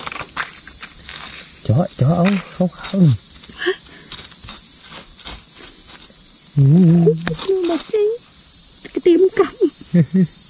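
Steady high-pitched drone of insects, with a small garden trowel scratching and clicking through soil and grit as puffball mushrooms are dug out. Short stretches of low voices come in twice, about two seconds in and again past the middle.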